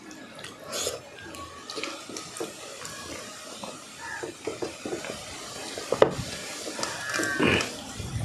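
Close-up eating sounds: fingers mixing rice and fish curry on steel plates, with chewing and small smacks of the lips. A steel tumbler knocks down sharply on the table about six seconds in, and a brief voice-like sound comes near the end.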